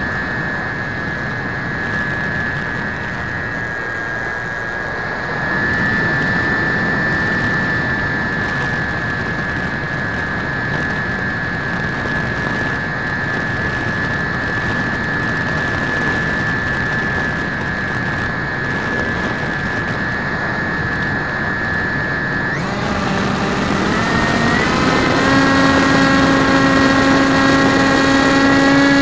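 RC floater jet's motor and propeller heard from the onboard camera, a steady high whine over wind rush. Near the end the whine changes to a lower tone that climbs steadily in pitch as the motor speeds up.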